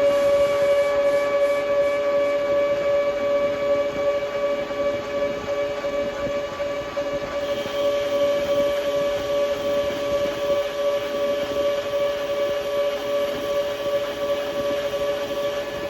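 Metal lathe running steadily at speed with a constant whine, turning a piece of aluminium bar stock. A little more hiss joins the whine about halfway through.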